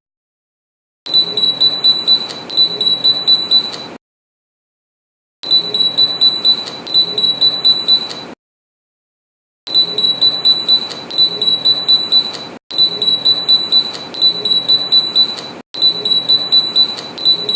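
Electronic siren gadget sounding a high-pitched pulsing beep, about three pulses a second, in five spells of about three seconds, each cut off abruptly by silence.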